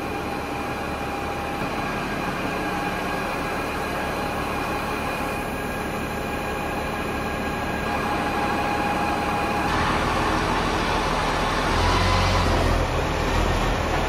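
Diesel farm machinery running while grain is tipped and pushed up into a heap, with a steady whine over the engine. From about ten seconds in it gets a little louder, with more low rumble, as it works harder.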